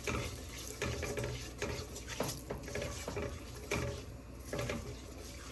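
A utensil stirring and scraping in a pot, with repeated short scrapes and clinks. This is curry being fried in hot oil, the 'burning the curry' stage before the chicken goes in.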